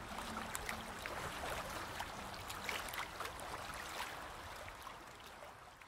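Sea water gently lapping and trickling, with scattered small splashes and clicks, slowly fading out near the end.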